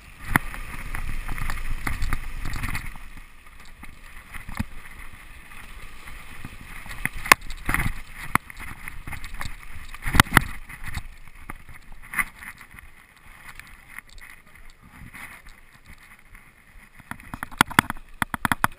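Mountain bike descending fast on a rocky gravel trail, heard from a body-mounted camera: wind buffeting the microphone, tyres crunching over stones, and the bike and camera rattling with sharp knocks over bumps. The wind rumble is heaviest in the first few seconds, and the knocks are loudest about halfway through and in a cluster near the end.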